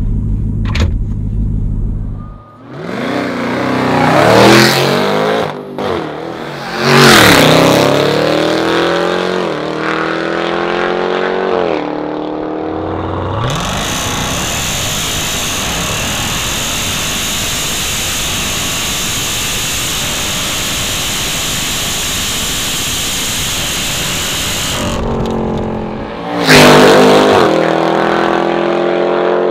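Hennessey HPE1000 Jeep Trackhawk's supercharged 6.2-litre V8 at full throttle, its revs climbing and dropping back at each upshift several times in a row. A long steady stretch of engine noise with a high whine follows, then another hard launch near the end, revs rising again.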